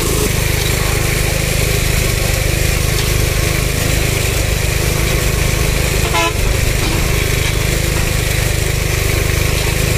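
A small engine running steadily at a constant speed, with a brief high tone about six seconds in.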